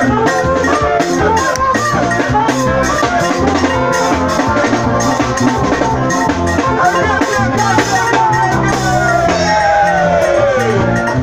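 Live highlife band music played loud, a drum kit keeping a steady beat under a wavering melody line.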